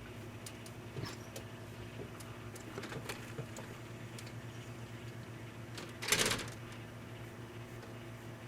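700-watt Emerson microwave oven running with a steady hum while loose popcorn kernels heat inside, giving scattered faint ticks and one louder pop about six seconds in.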